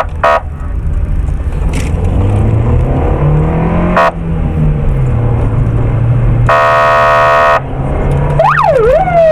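Police patrol car in pursuit: its engine accelerates, rising and then falling in pitch. A steady horn blast about a second long sounds near 7 s, and in the last second the siren starts wailing in rising and falling sweeps, the signal for the car ahead to pull over.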